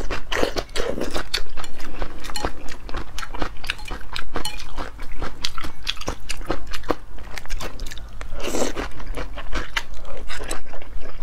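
Close-miked eating of wide flat noodles in soup with chopsticks: slurping strands and chewing, with rapid wet clicks and smacks of the mouth throughout and a longer burst about eight and a half seconds in.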